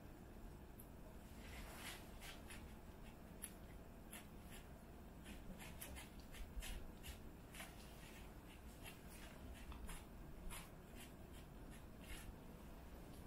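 Kittens lapping and eating from a plastic plate: faint, irregular little wet clicks and smacks, several a second.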